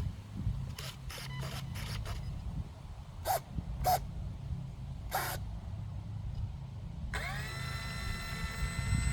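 Light clicks and a few brief servo whirs as the control surfaces are checked. About seven seconds in, the E-flite UMX Turbo Timber Evolution's electric motor and propeller spool up with a quick rising whine, then hold a steady pitch.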